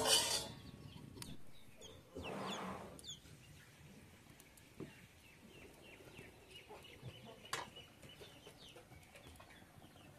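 Chickens clucking, with a sharp knock at the very start and another about seven and a half seconds in.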